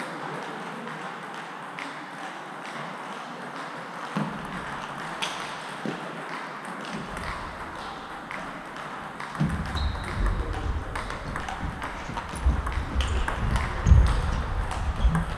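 Table tennis balls clicking off bats and tables in a sports hall, with many scattered clicks from several tables at once. From about nine seconds in, low thuds and louder hits join as a rally gets going at the near table.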